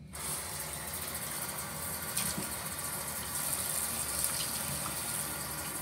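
Bathroom sink faucet turned on and running steadily, with splashes as water is scooped up in cupped hands and splashed onto the face.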